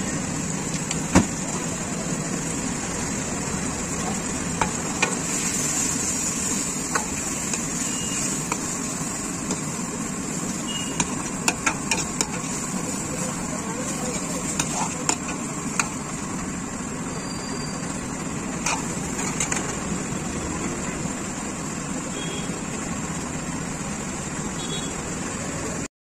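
Street-stall wok cooking over a gas burner: a steady roar of flame and sizzling gravy, with sharp metallic clacks of a steel ladle striking the wok now and then.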